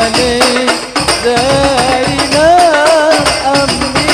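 Devotional sholawat music: a wavering melody over a steady percussion beat, the melody pausing briefly about a second in.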